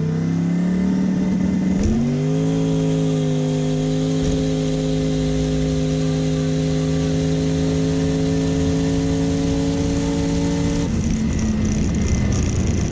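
A 1000 hp drag car's engine at full throttle during a quarter-mile pass, heard from inside the car. The pitch steps up about two seconds in, after an early gear change, then holds as a steady, slowly rising note. Near the end it drops away to a rougher rumble as the throttle closes.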